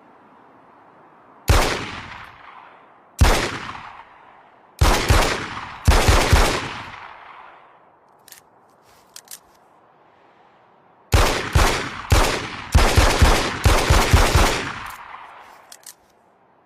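Beretta 92FS Inox 9mm pistol firing, each shot ringing out with an echoing tail: four or five shots spaced about a second or more apart, then, after a pause with a few faint clicks, a quick string of about ten shots.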